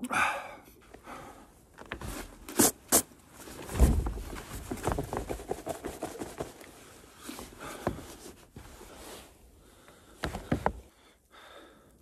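Handling and clothing noise from someone moving about in falling snow: a snow-covered jacket rustling, with irregular clicks and knocks, a loud dull thump about four seconds in, and another burst of rustling near the end.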